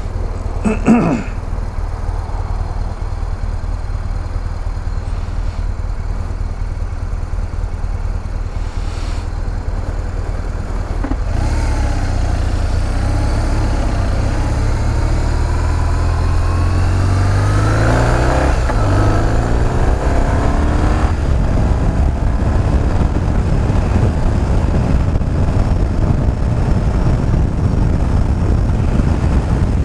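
2007 BMW R1200GS boxer-twin engine idling at a stop, then pulling away about a third of the way in, its pitch climbing, dropping once at a gear change and climbing again. It then settles into a steady cruise with road and wind noise.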